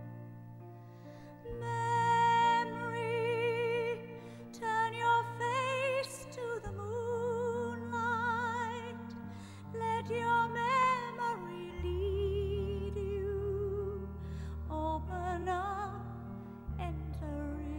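A song: a solo voice holding long notes with wide vibrato over slow, sustained low accompaniment.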